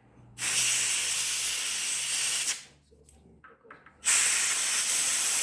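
Compressed air from a compressor hissing in two long blasts, the second starting about four seconds in, as the radiator is pressurised to find which soldered tubes still leak.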